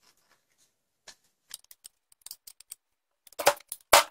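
Light clicks and clacks of pump-shotgun parts being handled as the polymer forend is worked back onto the action bars, growing louder, with several sharp knocks near the end.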